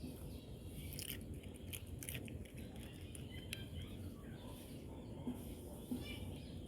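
A dog eating, with a few irregular crisp crunches and clicks over a steady low rumble.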